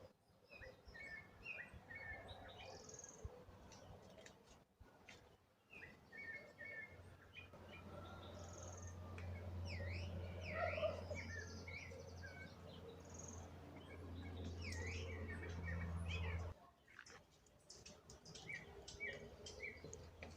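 Several birds chirping and calling in short rising and falling notes and quick trills. A low steady rumble runs underneath through the middle and stops suddenly about three-quarters of the way in.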